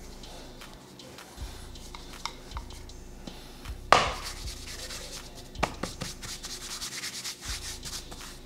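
Wooden rolling pin rubbing and rolling over chilled tart dough on a granite countertop. There is a sharp knock about four seconds in, followed by a quick run of rolling strokes.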